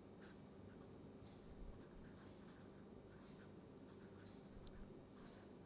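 Faint scratching and squeaking of a felt-tip permanent marker writing on paper in many short strokes, over a low steady hum.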